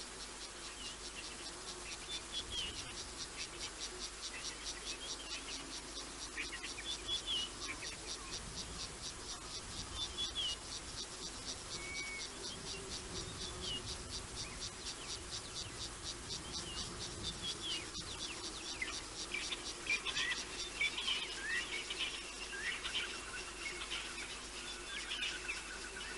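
An insect trilling in rapid, even pulses throughout, with scattered short chirping bird calls that grow busier near the end.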